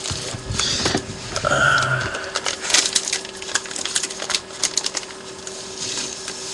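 Plastic comic-book sleeve rustling and crinkling, with irregular light clicks and taps, as the comic is worked out of it by hand. A short hum of voice comes about a second and a half in.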